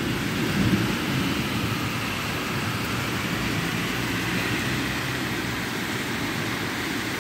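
Heavy tropical rain falling steadily on a tiled roof and wet street, an even hiss. A low rumble in the first second fades into the steady rain.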